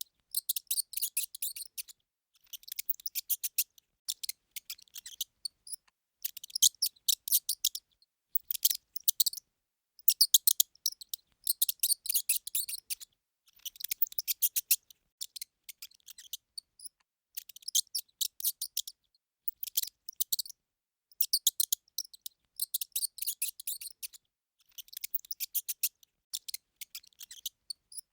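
Mouse squeaking: rapid trains of short, high-pitched squeaks in bursts of about a second, coming roughly every two seconds with brief pauses between.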